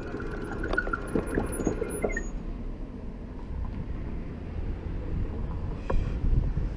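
Road traffic: cars driving past on the street, a steady low rumble that swells as a car passes close near the end. A few light clicks in the first two seconds.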